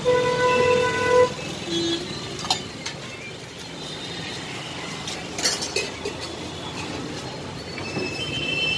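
A vehicle horn sounds once, a steady single tone lasting about a second at the start, over steady street traffic noise, with a few sharp knocks later.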